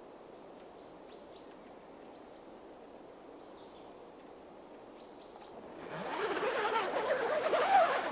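Quiet forest background with a few short bird chirps. About six seconds in, a much louder rustling of tent fabric starts as the canvas door flap of the hot tent is pushed open from inside.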